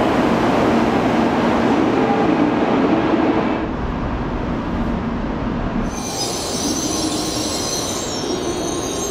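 A Shinkansen bullet train at a station platform: a steady rail rumble, then about six seconds in a high-pitched squeal and hiss joins as the train is at the platform.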